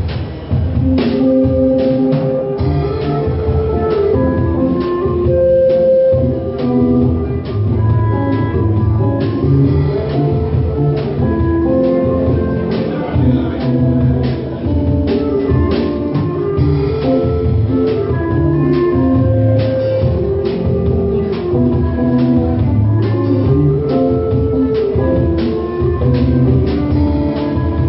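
Instrumental folk music: a melody of short pitched notes over a low bass and a steady percussive beat.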